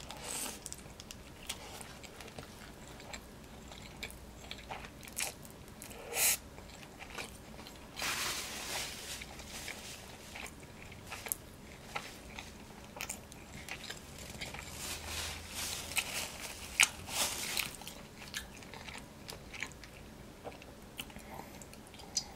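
Close-up eating sounds of a person biting into a hamburger and chewing it: wet mouth sounds with many small clicks.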